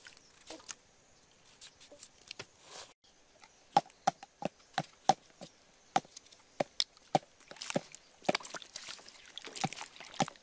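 Kitchen knife cutting raw pumpkin held in the hand into cubes: a quick run of short, sharp cuts, two or three a second, starting about three seconds in. Near the end, water splashing as hands stir the cut pieces in the bowl.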